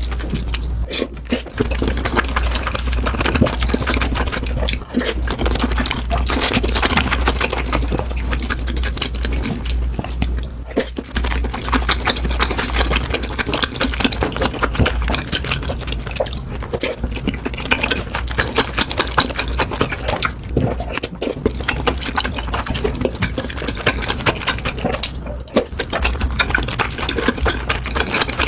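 Close-miked eating: continuous wet chewing and slurping, thick with small wet clicks and smacks, over a steady low hum.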